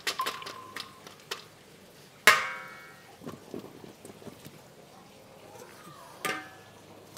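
Metal kitchenware being handled: a sharp, ringing clang of metal striking a metal pot about two seconds in, and a second, smaller ringing clank near the end, with light taps and clicks between.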